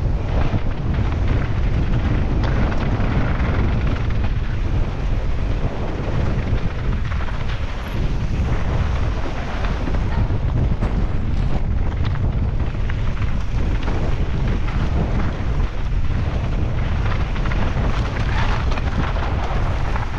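Wind rushing steadily over the microphone, mixed with the rumble and constant rattle of a mountain bike's tyres and frame on rough ground at race speed.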